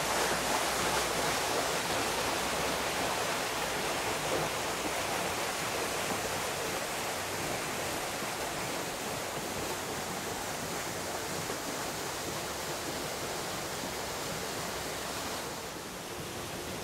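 Steady, even rushing of flowing water, dipping slightly in level near the end.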